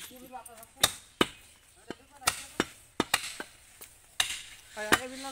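Heavy butcher's cleaver chopping raw beef on a wooden log chopping block: a run of irregularly spaced sharp chops, some coming in quick pairs.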